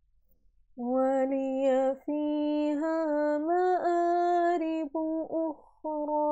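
A woman reciting the Quran in a slow melodic chant (tajweed), holding long drawn-out notes that bend gently in pitch. The voice comes in about a second in and breaks off briefly a few times.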